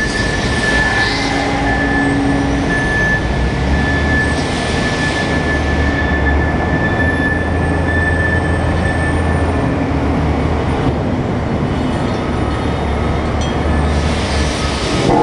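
Kalmar 45-tonne diesel forklift running with a deep, steady engine drone while its hydraulic ingot clamp holds and turns a hot ingot, amid loud machine noise. A steady high whine sits over it and fades out about two-thirds of the way through.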